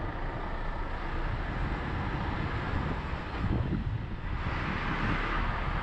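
A lorry driving on the road: steady rumble of the drive with road and wind noise, and a rushing hiss that swells up about four and a half seconds in.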